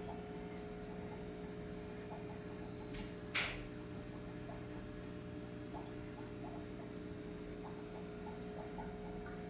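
Steady hum of running aquarium equipment, with faint soft blips and a single sharp click about three and a half seconds in.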